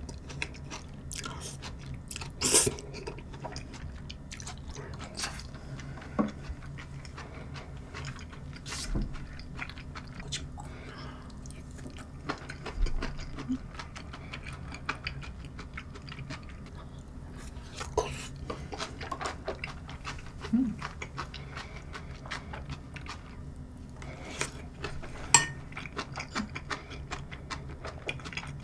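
Close-miked chewing of creamy pasta: soft, wet mouth sounds, with sharper clicks now and then.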